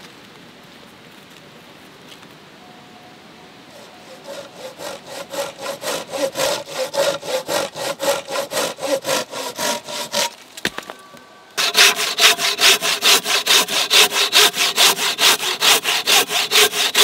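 Hand saw cutting through a log in steady back-and-forth strokes, about three a second. The sawing starts faint a few seconds in, stops briefly, then resumes much louder and closer.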